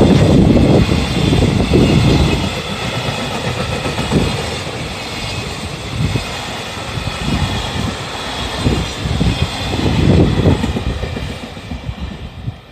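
Freight train wagons rolling past over a level crossing, their wheels clattering over the rail joints in irregular bursts. The sound falls away near the end as the tail of the train passes.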